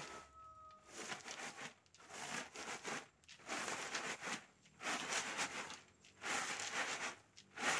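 Pounded coffee rustling and swishing in a woven bamboo winnowing tray as it is tossed and shaken, about five swishes a little over a second apart.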